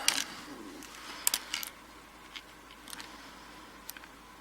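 Small sharp clicks and taps of a brass padlock and small metal lock tools being handled, a few irregular clicks about a second apart.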